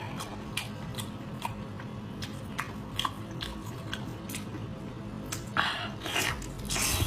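A person eating close to the microphone: crisp crunchy bites and chewing, with sharp crunches every half second or so and a louder, denser stretch of crunching about five and a half seconds in.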